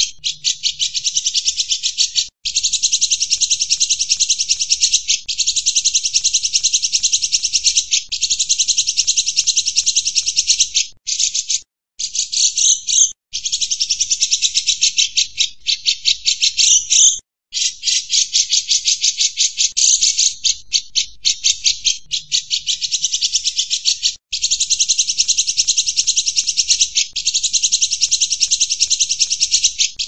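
Grey-cheeked bulbul (cucak jenggot) singing a loud, rapid, buzzy chattering trill, delivered in runs of a few seconds with brief breaks between them.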